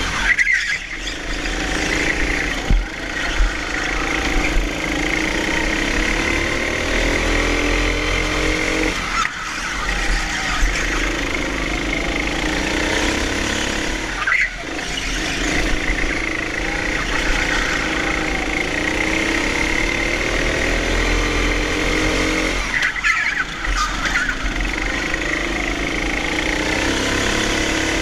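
Honda engine of a hire go-kart heard from the kart itself, running hard with its pitch climbing along the straights. The pitch drops sharply about four times as the throttle is lifted for corners, then rises again.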